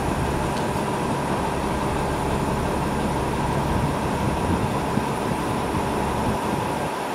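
New Flyer XD60 articulated diesel bus idling while stopped: a steady engine rumble with a steady high whine.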